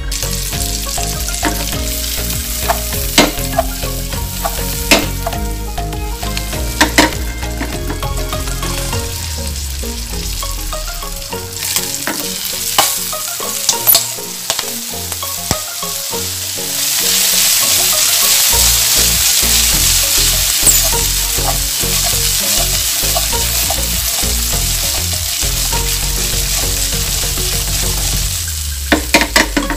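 Sweet corn kernels sizzling in margarine in a non-stick frying pan as they are stirred and tossed, with a few sharp clacks against the pan. The sizzle gets louder a little past halfway.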